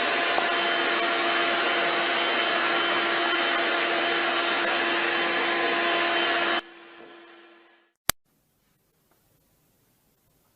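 A small electric motor whirring steadily with a fixed hum, like a vacuum cleaner or hair dryer. It drops sharply about six and a half seconds in and fades away over about a second. A single sharp click follows, then near silence.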